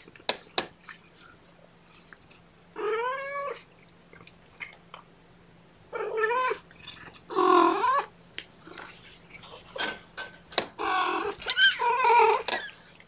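Cat meowing: about five drawn-out meows spread through the stretch, each rising then falling in pitch, two close together near the end. Faint taps and rustles come between the calls.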